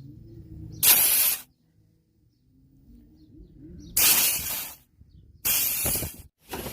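Three short blasts of compressed nitrogen hissing out of a split AC's condenser coil as it is flushed, blowing out old compressor oil.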